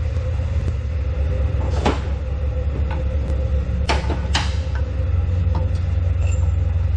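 Steady low workshop rumble with three sharp metallic clicks, about two seconds, four seconds and four and a half seconds in, as a piston clamped in a ring compressor is handled.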